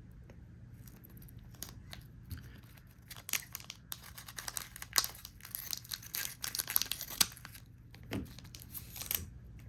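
Foil booster pack of trading cards being torn open and its wrapper crinkled: irregular crackling and tearing rustles that grow busiest in the middle and die away near the end.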